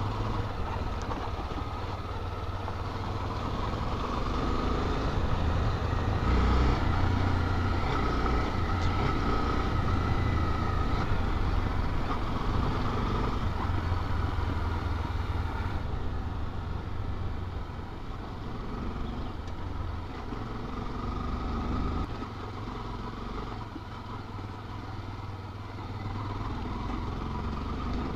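Motorcycle running while riding over a rough dirt and gravel road, with a steady heavy low rumble. It eases off a little about halfway through.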